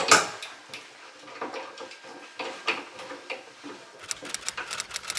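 Tuttnauer autoclave door being shut with a loud double clack, then its metal locking handle turned to tighten the door, with scattered knocks and a fast run of sharp clicks near the end as the handle is wound.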